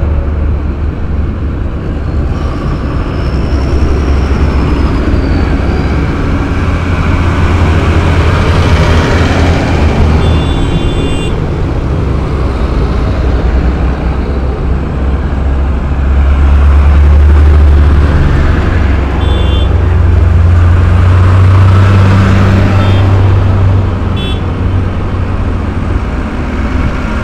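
Diesel engines of a line of farm tractors, John Deere and New Holland among them, running close by: a loud, steady deep rumble that swells a little past the middle.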